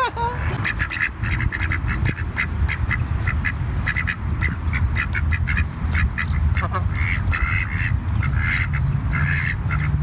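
A flock of domestic ducks quacking over and over, many short calls overlapping, as they clamour for bread. A steady low rumble runs underneath.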